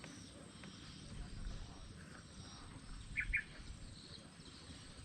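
Faint outdoor background of insects, with two quick short chirps close together about three seconds in.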